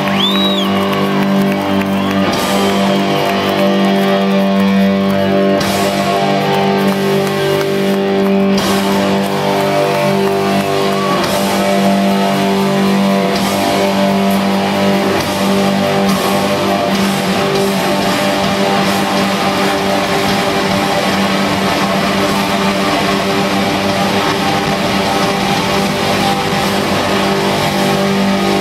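Live rock band playing loud with distorted electric guitars holding long sustained chords. The sound echoes through a large arena, and the bottom end gets heavier about halfway through.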